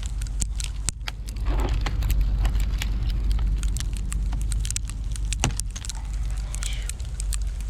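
Sleet pellets falling and hitting the car and the ground: many small, sharp, irregular ticks, over a steady low rumble.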